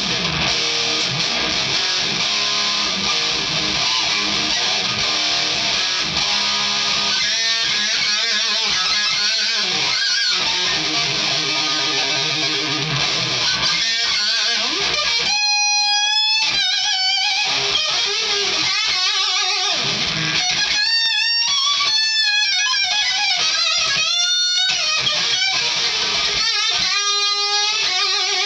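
Distorted Strat-style electric guitar through a Mesa amplifier playing a bluesy metal solo: a dense run of notes at first, then separate phrases of held, bent notes with wide vibrato.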